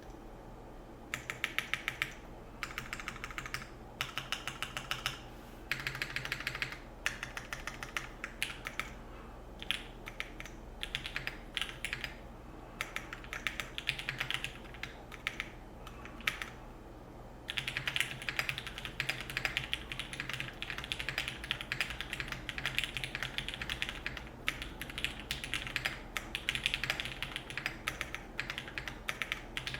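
Custom SL65 gasket-mount mechanical keyboard being typed on: Cherry MX Black linear switches under GMK keycaps on a polypropylene plate, in a polycarbonate-top, aluminium-bottom case. Keystrokes come in short bursts with pauses at first, then as steady fast typing from a little past halfway, with louder strokes standing out now and then.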